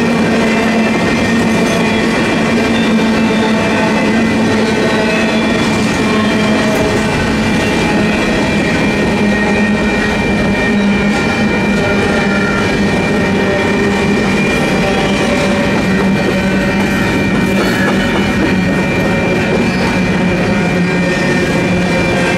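Freight train of empty double-stack well cars rolling past at a grade crossing: a steady, loud rumble and clatter of wheels on rail, with steady ringing high tones over it. The crossing's electronic bells ring throughout, since they sound until the gates rise.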